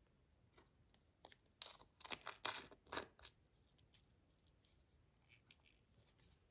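Slime being squeezed and stretched by hand: a burst of crackling pops and clicks about two to three seconds in, with scattered small clicks before and after.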